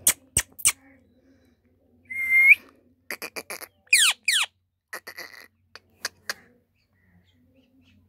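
Indian ringneck parakeet calling: three sharp squeaks, then a loud whistle that rises at its end about two seconds in. Quick chirps and two falling whistles follow, with a few more short squeaks after them.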